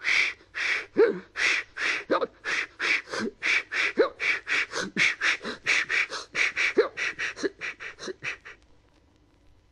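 A man's voice making steam-engine puffs with his breath, about three chuffs a second, growing fainter and dying away near the end.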